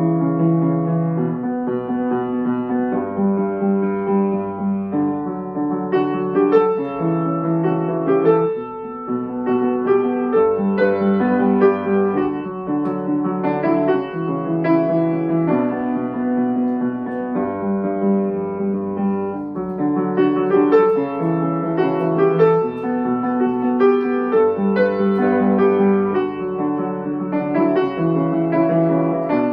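Kawai upright piano played solo, a steady flow of melody over sustained chords, with a brief lull about eight seconds in.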